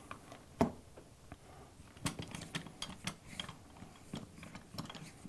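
Irregular metal clicks and knocks, about half a dozen, as an AC hose fitting is set back into the die of a hand-pumped hydraulic hose crimper.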